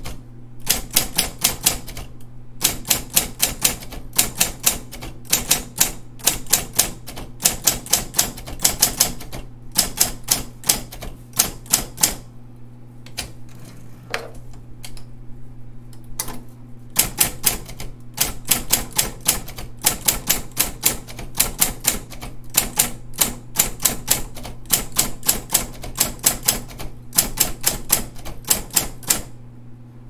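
Royal Award Series 1200 electric typewriter (model SP-8500) being typed on: quick runs of sharp typebar strikes over the steady hum of its electric motor. The typing breaks off for about four seconds near the middle, leaving only the motor hum, then resumes and stops just before the end.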